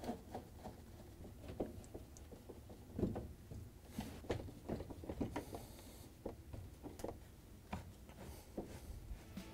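Faint, irregular clicks and light knocks from a Phillips screwdriver driving screws into a dishwasher's door panel, with a brief soft rustle about five seconds in.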